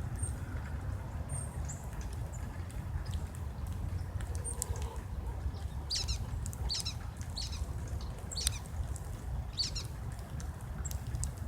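Small songbirds at a feeder giving short, high chirps, a few thin notes early on and then a cluster of quick calls from about six to ten seconds in, over a steady low rumble.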